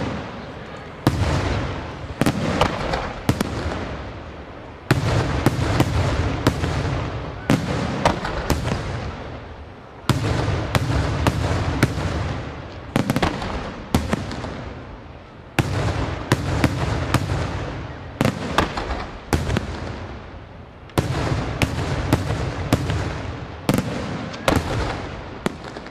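Aerial firework shells bursting in rapid, irregular succession: many sharp booms, sometimes several a second, each fading out before the next, with a brief lull near the end.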